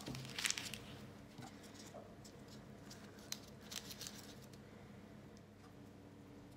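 Faint rustling and light ticks of hands twisting strips of puff pastry on baking paper, the paper crinkling now and then. The ticks cluster in the first second, then come only here and there.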